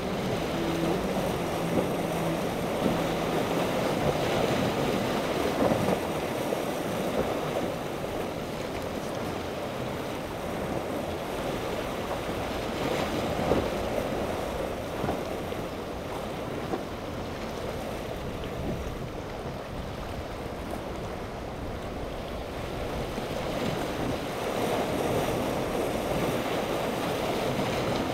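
Choppy inlet water sloshing and breaking, with wind on the microphone and the engines of passing powerboats droning faintly underneath, clearest in the first few seconds.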